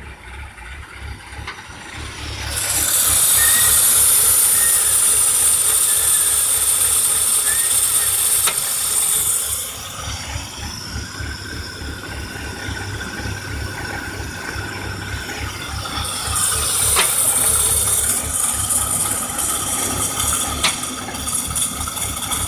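2003 BMW 325i's 2.5-litre straight-six idling with a loud hiss over it. The hiss rises about two seconds in, falls away near ten seconds and returns around sixteen seconds. This is the hissing the owner reports along with an idle that stumbles and stalls unless the gas pedal is held.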